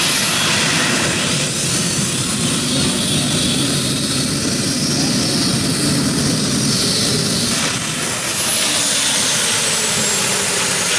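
Multi-engine modified pulling tractor running flat out under load while it pulls the sled, with a high whine that drops in pitch about eight seconds in.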